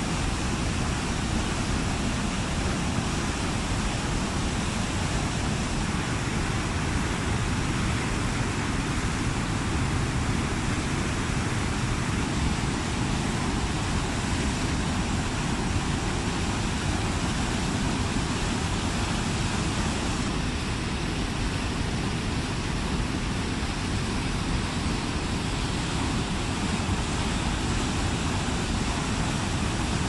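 Waterfall pouring down a rock face onto boulders at close range: a steady rush of falling water.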